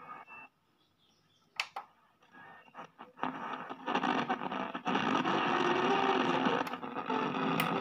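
Shortwave static from an iBall Castro 9-band portable radio's speaker as it is tuned across the shortwave band: a loud rushing hiss that builds about three seconds in and cuts off abruptly at the end. A single sharp click sounds about a second and a half in.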